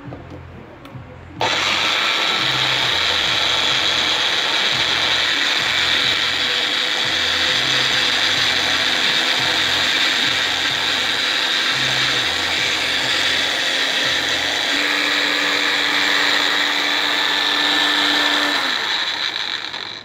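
Magic Bullet blender motor running, blending a thick mix of petroleum jelly, aloe vera gel and olive oil. It starts about a second and a half in and runs steadily. Its hum steps up slightly in pitch about three quarters of the way through, and it winds down and stops near the end.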